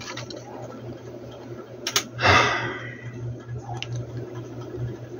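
Light clicks from handling a screwdriver against a plastic ruler on a workbench, one about two seconds in and a fainter one near four seconds, with a short breath just after the first, over a steady low hum.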